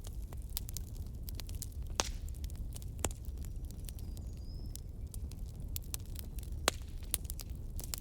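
Wood campfire crackling: irregular sharp pops and snaps over a low steady rumble, the sharpest pop about two-thirds of the way in.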